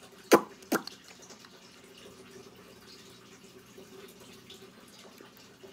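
Two quick, loud suction pops from a lip gloss wand being worked in and out of its tube, each dropping in pitch like a drip. They come less than half a second apart, near the start.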